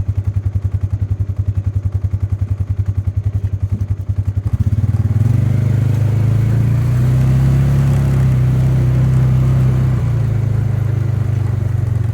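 A small vehicle engine idles with an even, rapid chugging. About four and a half seconds in it picks up and runs at higher revs, then eases off a little near the end.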